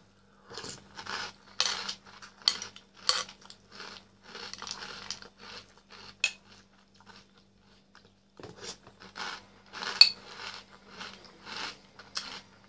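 Metal spoon clinking and scraping in a ceramic bowl, with close-up chewing and slurping of chocolate cereal balls in milk. There is a short lull past the middle, and a few sharper clinks of spoon on bowl.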